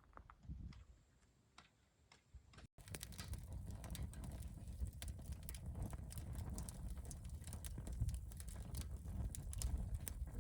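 Wood campfire crackling: irregular small pops and snaps over a steady low rumble. It starts after a brief quiet stretch and an abrupt cut about three seconds in.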